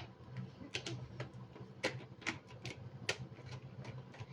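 Irregular sharp plastic clicks, about ten of them, typical of a new wireless computer mouse's buttons being pressed and handled.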